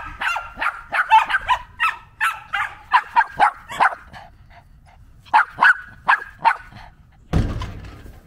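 Dog barking in quick, high-pitched yips: a long run, a pause of about a second, then a shorter run. A brief rush of noise follows near the end.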